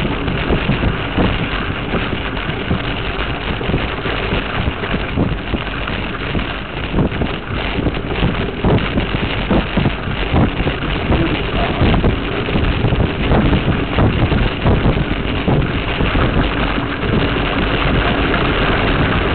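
Wind buffeting a bike-mounted action camera's microphone, with frequent knocks and rattles as the mountain bike rolls over a bumpy dirt trail.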